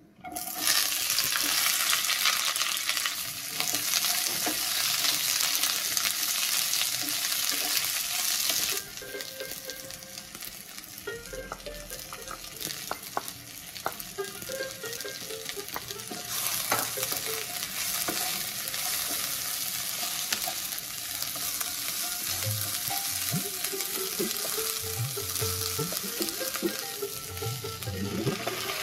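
Chopped onions dropped into hot oil in a nonstick kadai, with a sudden loud sizzle that settles into steady frying after about nine seconds. A wooden spatula scrapes and stirs in the pan, and the sizzle picks up again about halfway through when the ginger and garlic go in.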